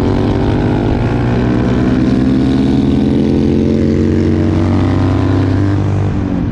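Honda CRF450L single-cylinder engine with a full Yoshimura RS4 exhaust running at a steady cruise, heard from on the bike, with a Harley-Davidson cruiser's engine alongside as it is overtaken about four seconds in.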